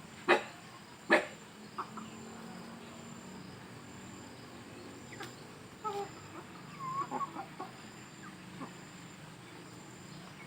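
Domestic chickens clucking over a steady background. Two short, loud calls come near the start, and softer clucks come around six to eight seconds in.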